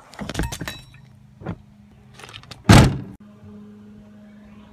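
Fingers tapping and knocking on a hard silver panel, a close-up ASMR-style demonstration of sounds. The clicks and knocks are scattered, with one much louder thump about two and a half seconds in. After a sharp click, a low steady hum runs on for the last second and a half.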